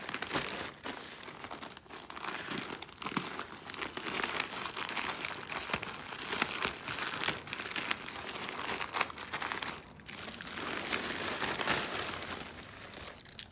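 A plastic poly mailer being torn open and the plastic-wrapped bags inside handled: continuous crinkling and crackling of thin plastic, with a short lull about ten seconds in.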